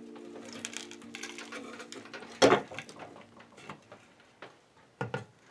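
Wooden front panel of a birdhouse being worked loose and pulled off by hand: scraping and light clicks of wood, with one sharp wooden knock about two and a half seconds in and a few light clicks near the end.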